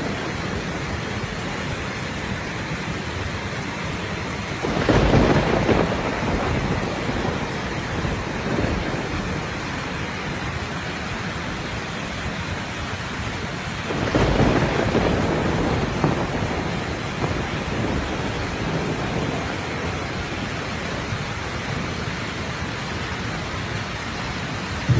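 Fast-flowing muddy floodwater rushing along a street in heavy rain, a steady wash of noise that swells louder twice, about five seconds in and again around fourteen seconds.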